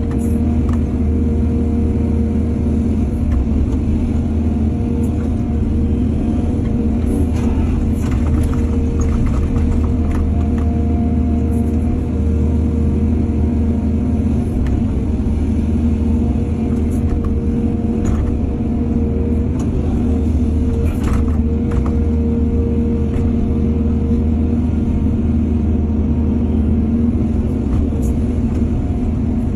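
Excavator's diesel engine running steadily with a constant drone and a held tone. Scattered short knocks and clatters on top, from the digging and loading work.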